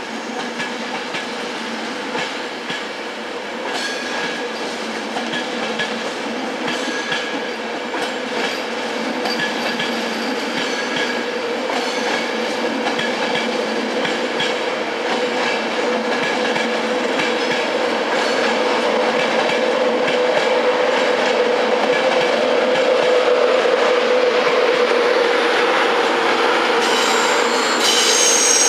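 A train moving through a station, growing gradually louder, with a steady hum, the clicks of wheels over rail joints, and high-pitched wheel squeal near the end.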